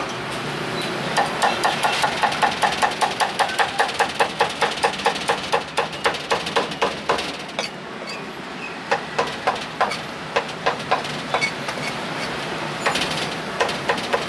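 Steel meat cleaver chopping roast pork on a thick wooden chopping block in quick, even strokes, about three chops a second. The chopping pauses briefly around the middle, then resumes in shorter runs.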